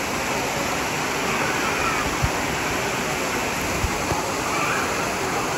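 Water gushing steadily from a play-structure spout and splashing into a shallow pool, a constant rushing, with children's voices faint beneath it and a couple of brief low thumps in the middle.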